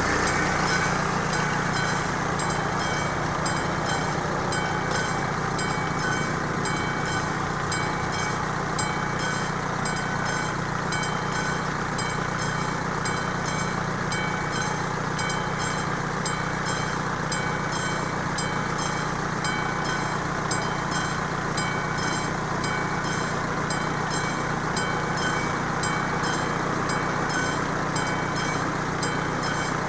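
Level-crossing warning bell, the classic electric bell of an AŽD 71 crossing signal, ringing on and on with an even, repeating beat. Under it runs a steady low engine hum from a car idling at the lowered barrier.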